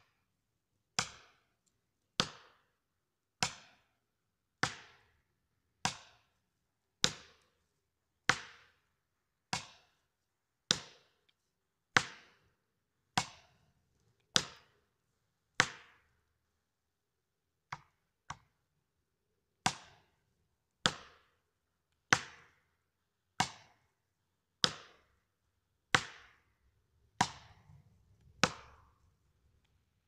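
Steady series of hard blows, about one every 1.2 seconds with a short break midway, from an axe driving felling wedges into the cut of a tree that leans back against the felling direction, to tip it over.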